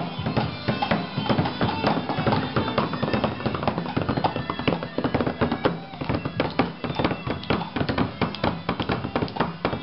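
Music with a busy percussive beat: many quick, sharp taps over a steady low bass line.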